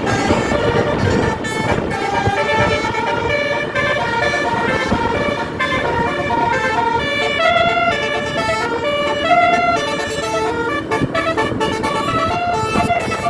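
Indonesian 'telolet' bus horns playing a tune of quick stepping notes, several horn tones at once, over the low noise of the passing buses.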